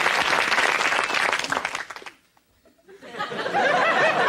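Sitcom studio audience applauding, dying away about two seconds in. After a short hush, a voice with a bending, wavering pitch starts about three seconds in.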